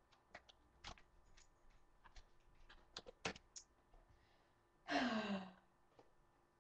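Scattered light clicks and taps, then about five seconds in a short vocal sound, half a second long, that falls in pitch.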